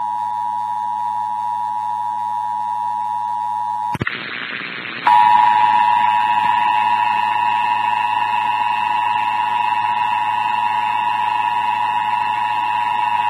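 Emergency Alert System attention signal, the steady two-tone alarm broadcast during a monthly test. One station's tone runs until about four seconds in and stops at a cut, there is a second of radio hiss, then another station's louder two-tone attention signal starts and holds steady to the end.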